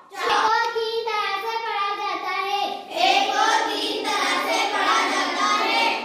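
A child's voice reading English words aloud in a drawn-out, sing-song chant, each vowel held long.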